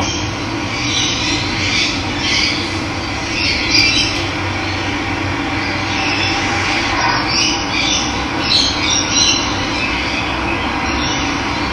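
Running water rushing steadily, with birds calling in short harsh bursts over it at intervals.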